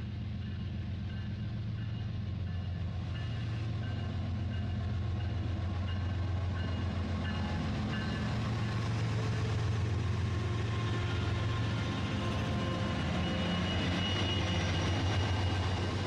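Battery-powered toy freight train running along plastic track: a steady low hum with fast rhythmic texture, growing a little louder over the last few seconds as it comes closer.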